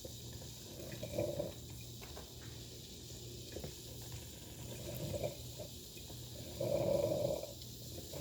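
Mr. Coffee 5-cup drip coffee maker brewing through a descaling cycle: irregular gurgling and sputtering spurts as the heater pushes water up to the brew head, with the longest and loudest spurt near the end.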